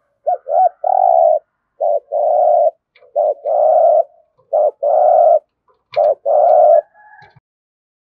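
Spotted dove cooing in a low voice, the 'thúc gù' style prized by keepers: five phrases in a row, each a short coo followed by a longer held one.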